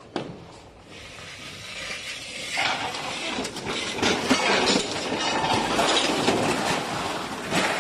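A shrink-wrapped, palletised machine on small rollers being pushed across the floor. The rollers rumble and clatter, getting louder about two and a half seconds in and continuing with irregular knocks.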